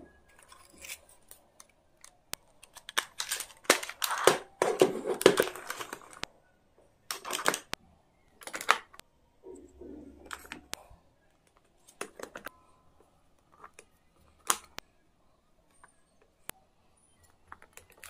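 Hands handling a plastic pencil case and its contents: scattered clicks and taps of hard plastic, with a busier stretch of rustling and clatter a few seconds in.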